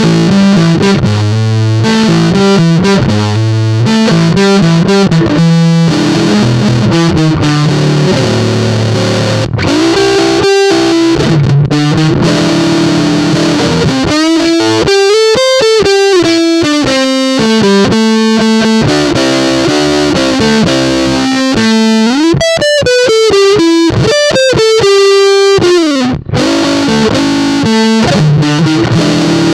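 Electric guitar (Squier Jazzmaster) through a Big Muff-style fuzz pedal at full gain, playing rhythm-and-blues licks. It starts with chopped chords, then moves to single-note lead lines with string bends, and ends on a held note.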